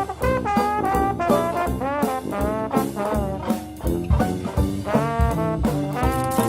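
Background music: an upbeat jazz tune led by brass, with quick melodic runs over a steady drum beat.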